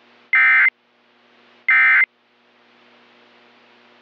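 Emergency Alert System end-of-message signal: two short, loud bursts of SAME digital data tones about a second and a half apart, over a faint steady hiss and hum.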